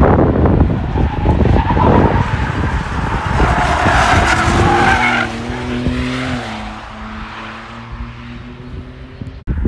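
A camouflaged BMW M4 Convertible test car takes a bend with its tyres scrubbing and squealing. About five seconds in, its twin-turbo straight-six settles into a steady drone that drops slightly in pitch and fades as the car pulls away.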